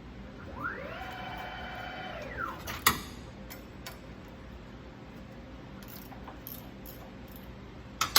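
CNC milling machine motor whining: the pitch rises, holds for about a second and winds back down. A sharp click follows about three seconds in, then a few faint clicks, and a louder double knock near the end.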